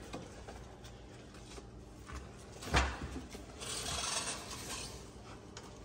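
Faint rustling and scraping in dry wood-chip bedding and stiff plant leaves as a monitor lizard stirs toward an offered fish. There is one dull thump about three seconds in, and a short scratchy rustle about a second later.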